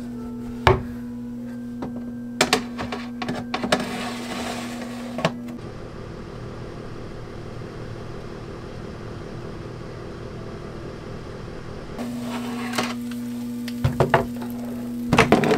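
An iNic all-stainless air fryer: its mesh basket clatters and clicks as it is pushed into the fryer, then the fryer runs with a steady fan hum for about six seconds. Near the end the basket is pulled out again with more knocks and clicks.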